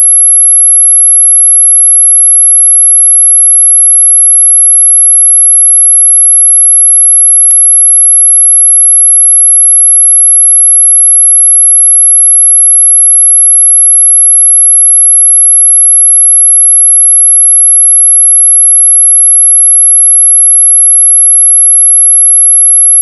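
A steady, very high-pitched pure electronic tone held at constant loudness, with one faint click about seven and a half seconds in; it cuts off abruptly at the end.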